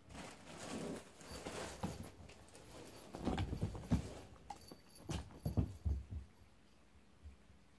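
A cat scrabbling under a sheet draped over a chair: fabric rustling, then two bouts of dull thumps as it bumps about underneath.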